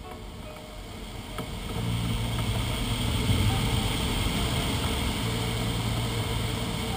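Airflow rushing over the canopy of a DG500 glider in aerobatic flight, growing louder about two seconds in and then holding steady.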